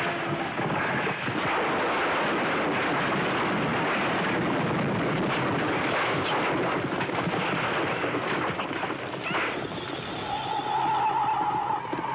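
A building fire roaring, with a dense crackle. About ten seconds in, a held musical note from the score comes in over it.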